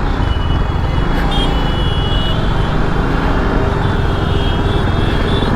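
TVS Apache RR310 motorcycle being ridden: its single-cylinder engine running under steady wind and road noise on the rider's microphone.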